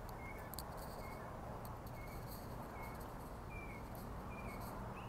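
Faint outdoor ambience: steady low background noise with a short high chirp repeating a little more than once a second, the last few chirps sliding down in pitch.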